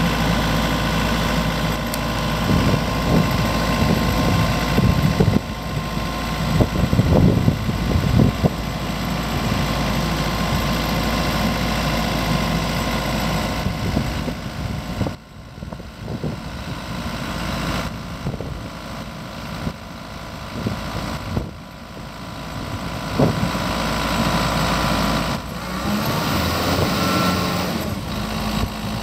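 Rotair portable diesel air compressor's Kubota diesel engine running steadily just after start-up, while the machine builds its internal pressures. It gets somewhat quieter about halfway through.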